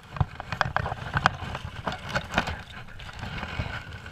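Close, irregular rustling with a string of sharp clicks and knocks: handling noise at the microphone as the wearer moves on the bank and picks up a wooden-framed landing net.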